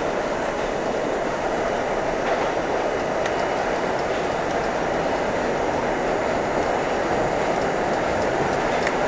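R32 subway train running at speed through a tunnel: a steady rumble of wheels on rail and running gear, with a few faint clicks from the track.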